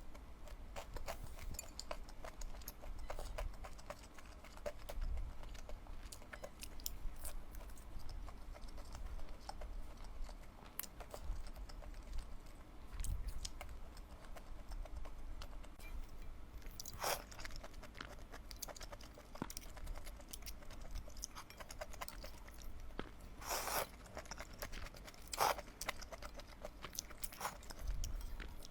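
Close-miked eating: steady chewing with many small, sharp mouth clicks, and three louder, longer noisy sounds in the second half.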